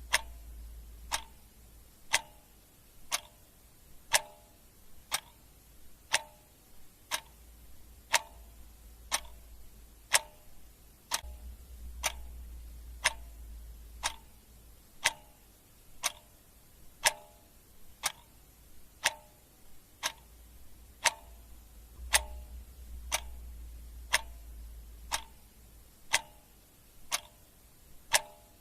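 Clock ticking steadily, about one tick a second, each tick sharp with a short ring.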